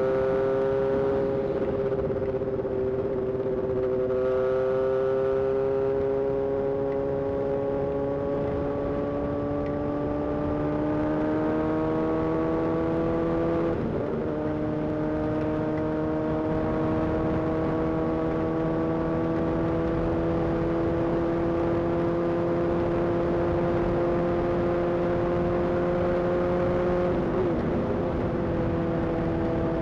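Honda CBR 600's inline-four engine under steady, gradual acceleration, its pitch climbing slowly and dropping at an upshift about 14 s in and again near the end, with steady wind and road noise underneath.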